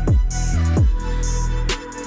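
Background music: an electronic track with a heavy beat and falling bass drops.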